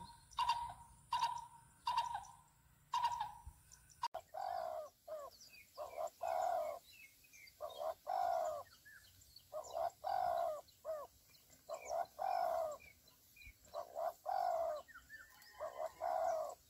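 Greater coucal calling: a series of evenly repeated hoots, then, after about four seconds, longer and louder hoots in runs of several.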